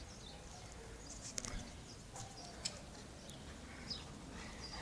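Faint outdoor background with small birds chirping now and then and a couple of short, sharp clicks.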